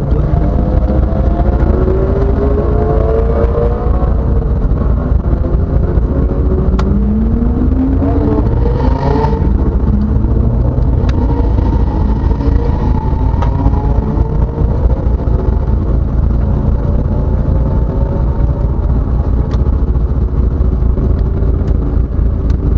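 Race car engine running inside its stripped cabin with a steady low rumble, its note rising and falling, with one clear rise in revs about a third of the way in. A few sharp clicks stand out over it.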